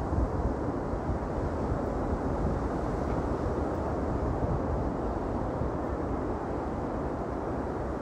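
Steady wind buffeting the microphone, a continuous low rumble and rush with no distinct events.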